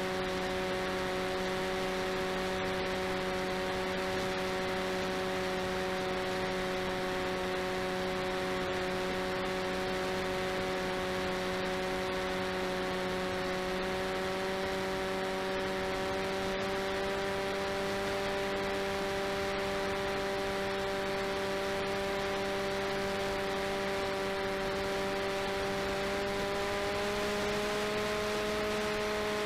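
The RCTimer 5010 630KV brushless outrunner motor and propeller of an FPV delta wing, run on a 4S LiPo, whine steadily in flight. It is heard from the onboard camera with a rush of wind noise. The pitch creeps up slowly and rises a little more near the end.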